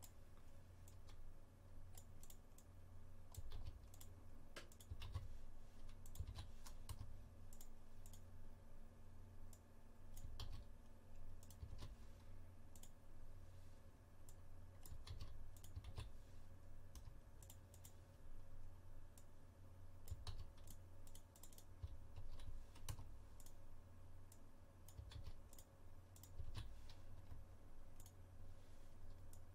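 Faint, irregular clicking of a computer mouse and keyboard as web addresses are selected, copied and entered one after another, over a low steady hum.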